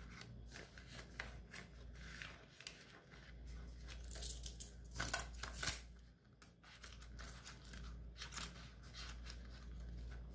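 Paper banknotes being handled, counted and slid into a clear plastic binder pouch: crisp rustling and flicking of bills and crinkling plastic, loudest about four to six seconds in and again near the end.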